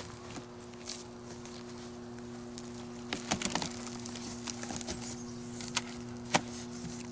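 Flaps of a large cardboard box being pulled open and folded back: scattered cardboard rustles and sharp knocks, a cluster of them about three seconds in and one sharp knock near the end, over a steady low hum.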